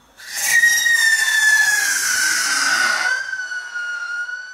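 Whistle rocket lifting off with a short rush of noise, then its shrill whistle: one long tone that slowly falls in pitch. It is loud for about three seconds, then goes on more faintly as the rocket climbs.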